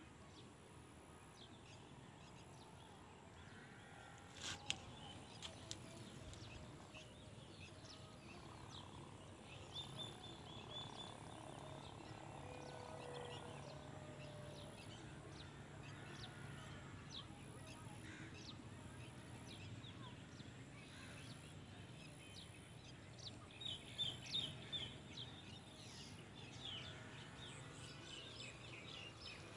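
Faint open-field ambience: scattered short bird chirps and calls, busiest in the last third, over a faint steady low background hum.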